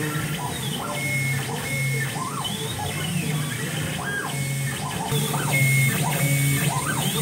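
Stepper motors of two CNC milling-engraving machines running the same program together. They whine in short moves, each rising in pitch, holding and falling again, over a low hum that switches on and off.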